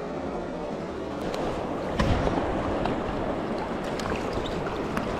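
Shallow river current rushing over stones, with wind buffeting the microphone and a sudden thump about two seconds in.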